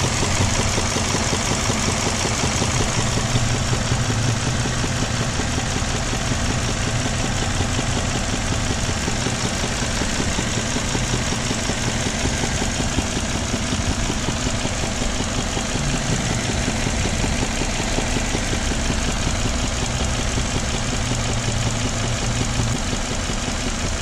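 2008 Suzuki Grand Vitara 2.7-litre V6 petrol engine idling steadily under the open bonnet, with a dead misfire on cylinder number one caused by a faulty ignition coil driver in the PCM.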